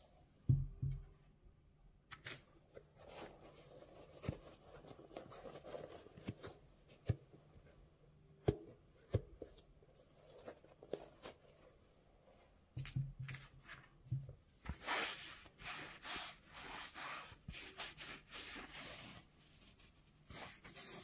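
White cotton gloves rubbing and scraping on a sneaker's mesh, leather and laces, with a few soft knocks as the shoe is turned over. Near the end comes a longer stretch of scratchy rustling as the shoe and its fabric-topped insole are handled.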